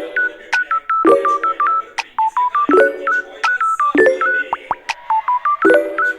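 Background electronic music: a quick run of short beeping notes like phone-keypad tones, over a chord that strikes about every second and a half.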